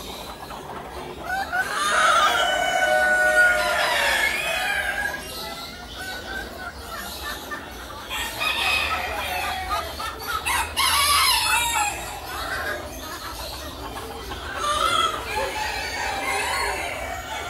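Caged roosters crowing over and over, with clucking in between. A long crow starts about two seconds in, another comes around the middle, and shorter calls overlap throughout.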